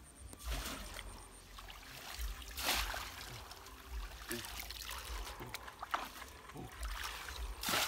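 Shallow stream water splashing and sloshing as a person wades and works a woven bamboo basket through it, with a few louder splashes, the strongest about two and a half seconds in and near the end.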